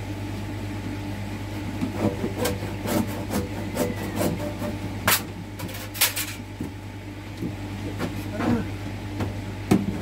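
Scattered clicks and knocks of flexible pond hose, plastic pipe fittings and tools being handled, most of them in the middle and a cluster near the end, over a steady low hum.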